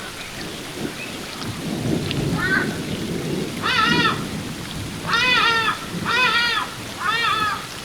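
Ibis calling over the steady rush of a waterfall. It gives a series of short calls, each arching up then down in pitch. The first is faint, about two and a half seconds in, and four stronger ones follow about a second apart in the second half.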